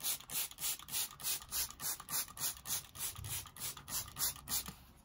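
Plastic trigger spray bottle set to mist, pumped rapidly at about five sprays a second, each spray a short hiss of tap water; the spraying stops just before the end.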